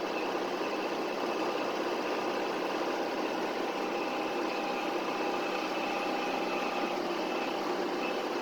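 Engine of the vehicle being driven, running at a steady speed with an even drone.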